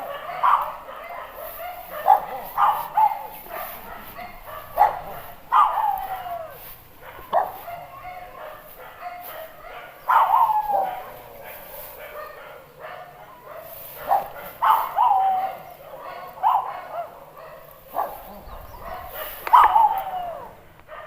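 An animal calling over and over, short calls that fall in pitch and come every second or two.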